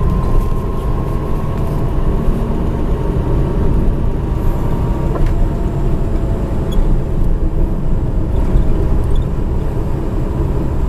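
Car running along a road, heard from inside the cabin: a steady low rumble of engine and tyre noise. A faint high whine fades out about halfway through.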